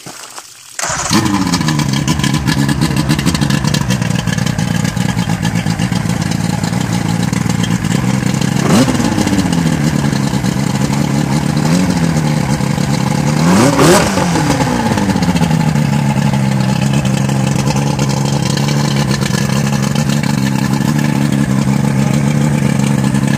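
Johnson 115 V4 two-stroke outboard motor starting about a second in and idling steadily. It is blipped up in revs three times, the third time the highest, and drops back to a smooth idle each time. It runs well on freshly cleaned carburetors.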